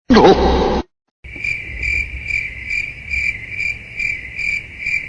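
Cricket chirping, steady and high, pulsing about twice a second and starting abruptly after a moment of dead silence: the stock crickets sound effect used as an awkward-silence gag. Just before it, a short loud sound with a falling pitch.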